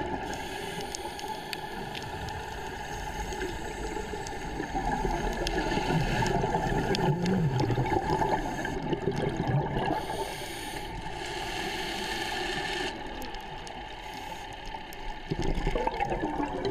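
Underwater scuba diver's regulator breathing, with surges of exhaled air bubbling and gurgling up past the microphone every few seconds.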